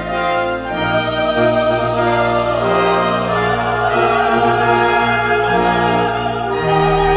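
Sacred choral music performed live: a choir with flute and grand piano, holding sustained chords. A fuller chord with deep bass comes in near the end.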